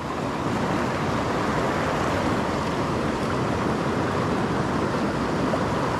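Rushing water of a fast-flowing mountain trout creek: a steady, even hiss.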